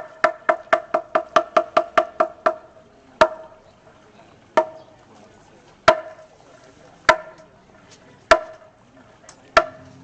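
A pitched percussion instrument struck over and over, each stroke a sharp hit with a short ringing tone. A quick run at about five strokes a second breaks off after about two and a half seconds, then six single strokes follow, a little over a second apart.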